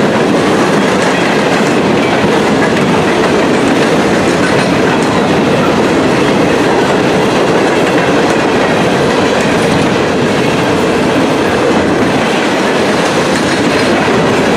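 Loaded freight cars of a long freight train rolling past close by: a steady rumble of steel wheels on rail with clickety-clack from the rail joints.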